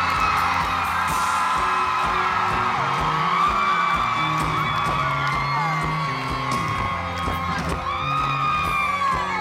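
Live rock band playing, with a stepping bass guitar line under the audience's whooping and screaming.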